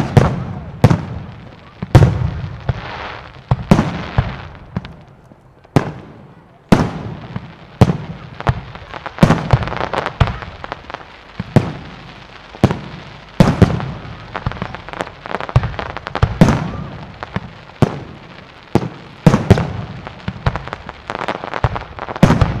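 Aerial fireworks shells bursting in quick succession, with sharp bangs roughly once a second at an uneven pace, each trailing off in echo.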